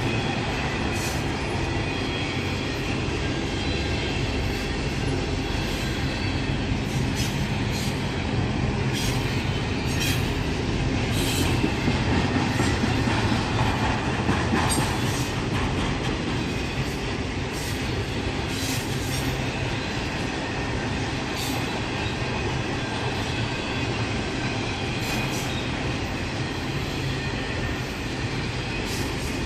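A train rolling past: the railcars make a steady rumble, broken by irregular sharp clicks of wheels crossing rail joints.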